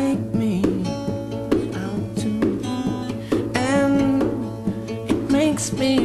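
Background music: a song with guitar and a singing voice.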